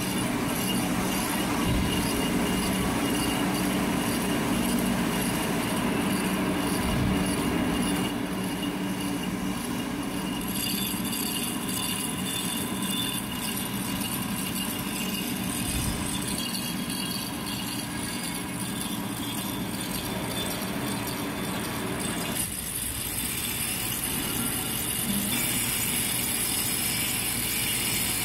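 Metal lathe running steadily while machining a bronze bushing, a continuous machine hum with a high hiss. The sound changes a few times, notably about a third of the way in and again near the end.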